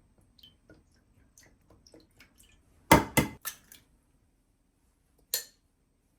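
Light clicks and taps of objects being handled, then a quick run of four loud knocks about three seconds in and a single knock near the end.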